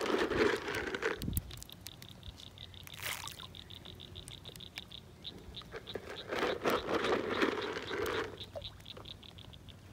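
Fish splashing and slurping at the pond surface as they feed on floating pellets, in two bursts, one at the start and one about six seconds in. A series of high clicks, several a second, runs through the middle.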